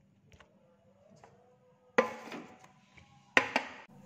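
Three sharp knocks of the filming phone being handled and set down on a kitchen surface: one about two seconds in, then two close together near the end.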